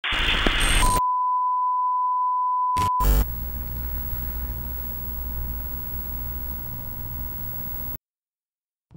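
Old-TV 'no signal' sound effect: a second of loud static hiss, then a steady high test-tone beep for about two seconds. A brief crackling glitch follows, then a low steady hum with a faint high-pitched whine, which cuts off suddenly about a second before the end.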